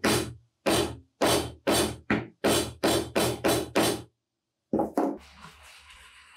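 Small steel hammer striking a metal T-nut into a wooden piece. There are about three sharp strikes a second for four seconds, a short pause, two more strikes, then soft rubbing of a paper tissue on the wood.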